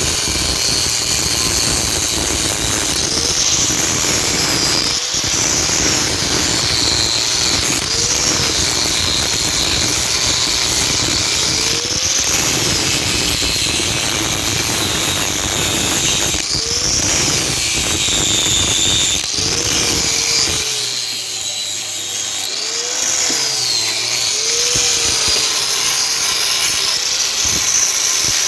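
A power tool running continuously with a harsh, gritty sound, its pitch dipping and rising again every few seconds as it is loaded and eased off.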